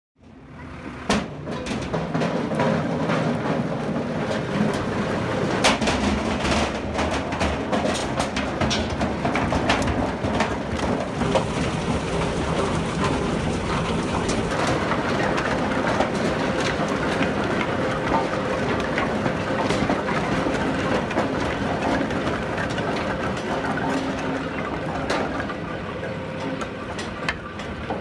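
Split firewood billets clattering and knocking as they tumble over the rotating rollers of a POSCH LogFix firewood cleaner: a dense, steady run of wooden knocks over a continuous machine rumble.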